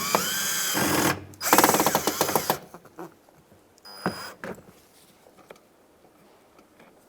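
Power driver running in two short bursts of about a second each, the first rising in pitch as the motor spins up, backing out a Phillips screw from a door trim panel. A few light clicks follow.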